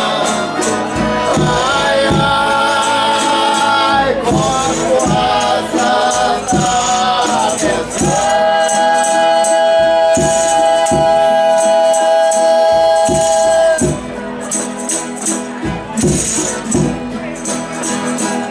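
Folia de Reis group singing in several stacked voices, holding long high notes on a drawn-out "ai" at the end of a verse, over regular tambourine-like beats. About 14 s in the voices stop and the instruments carry on a little more quietly.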